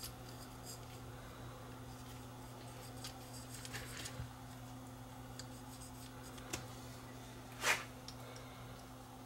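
Quiet handling sounds of small parts and tools being worked: scattered faint clicks and taps over a steady low electrical hum, with one short scraping rustle about three-quarters of the way through.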